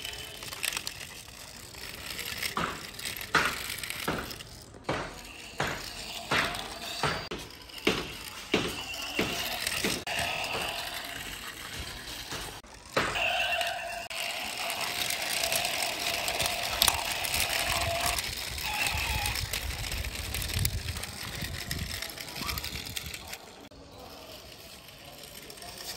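Toy vehicles handled on a concrete ledge: a run of sharp clicks and knocks, about two a second, for the first ten seconds or so. Then a steady droning tone holds for several seconds before fading.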